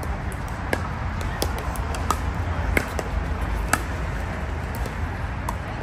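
Pickleball paddles hitting a plastic ball during a rally: a run of sharp pops roughly every two-thirds of a second, over a steady low rumble.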